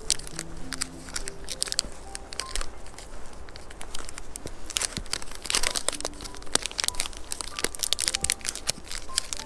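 Irregular crinkling and crackling of something being handled close by, with soft piano music underneath.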